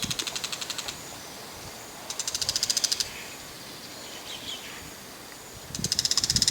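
Bull-headed shrike giving its harsh, rapid chattering call, the ground call (jinaki), in three bursts of about a second each, the notes repeated about a dozen times a second.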